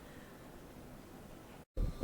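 Faint steady background hiss, then, after a brief dropout near the end, a loud dull low thump.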